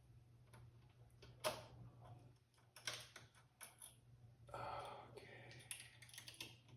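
Faint, scattered clicks and taps of computer parts being handled inside a desktop PC case while the graphics card is seated and its screws fitted, the sharpest click about a second and a half in, over a steady faint low hum.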